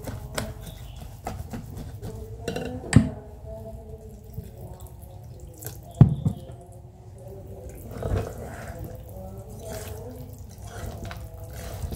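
Wire balloon whisk stirring thick mochi batter in a stainless steel pot: wet sloshing with the wires clicking against the pot. There are louder knocks, the loudest about three and six seconds in.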